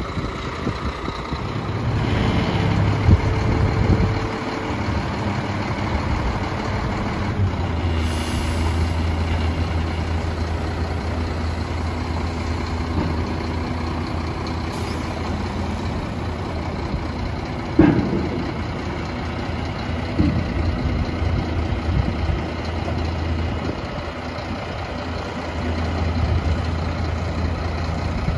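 Scania P114 tipper truck's diesel engine running steadily while the tipper body is worked hydraulically. Its low hum grows stronger about eight seconds in, together with a brief hiss of air. A single clunk comes about eighteen seconds in.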